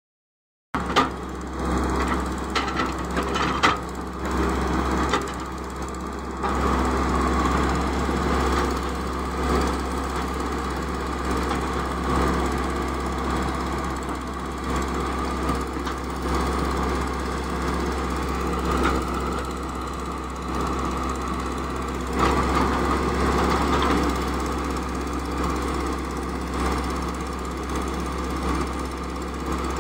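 Caterpillar E120B hydraulic excavator's diesel engine running steadily under digging load, with a few sharp knocks in the first few seconds.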